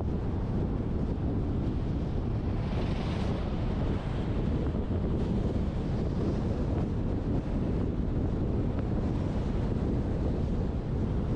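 Steady wind buffeting a roof-mounted GoPro on a moving truck, with the rumble of the truck's road noise underneath.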